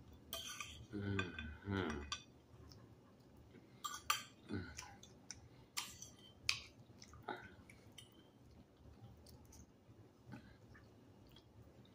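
Metal fork clicking and scraping on a ceramic plate while rice and chicken are picked up and chewed, in scattered small clicks. About a second in come two short hummed voice sounds.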